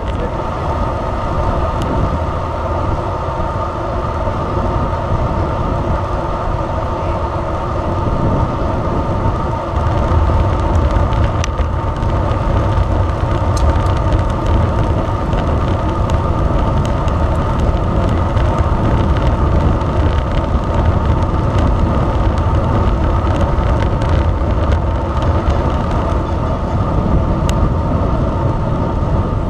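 Wind rushing over the microphone and tyre noise of a road bike riding at speed on tarmac, with a steady hum throughout; it grows a little louder about 8 seconds in.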